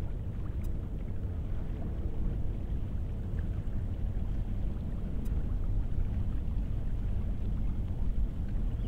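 Airbus A380's four jet engines heard from the ground as the airliner climbs out: a steady, low rumble.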